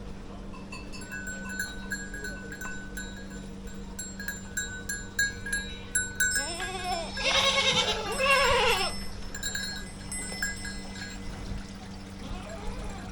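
Small bells on grazing livestock ringing in short tinkles throughout, with a run of several bleats about halfway through.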